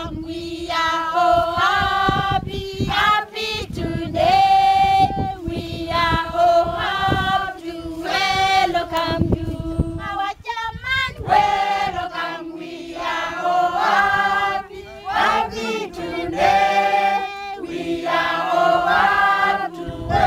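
A group of farmers, mostly women, singing a welcome song together, unaccompanied, in short repeated phrases.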